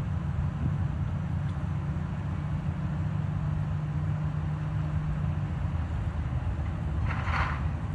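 Steady low engine rumble, with a short hiss about seven seconds in.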